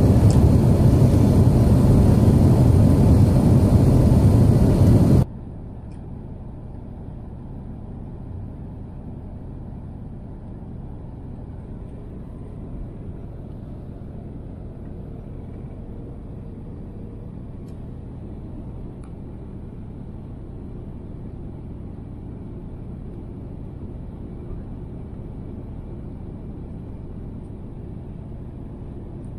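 Airbus A350 cabin noise on descent: a steady low rumble of engines and airflow. For about the first five seconds a much louder, full-range rushing noise covers it, then cuts off abruptly, leaving the quieter rumble.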